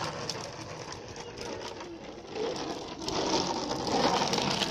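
Hard plastic wheels of a toddler's ride-on toy rattling as they roll over rough concrete, louder from about three seconds in.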